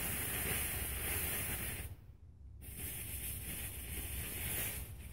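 A small pile of black-powder substitute, sulfur with a potassium chlorine-based oxidizer, burning with a steady hiss. The hiss drops out about two seconds in and picks up again as the mix burns intermittently, re-flaring like a trick birthday candle.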